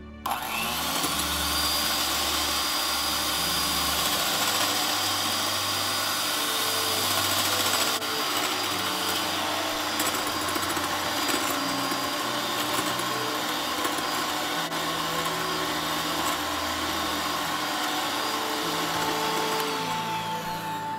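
A 5-speed electric hand mixer running, its wire beaters whipping liquid to a foam in a glass bowl: a steady motor whir with a thin high whine. It switches on abruptly and eases off near the end.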